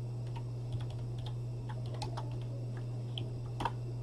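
Scattered light clicks and taps, irregular and faint, over a steady low hum.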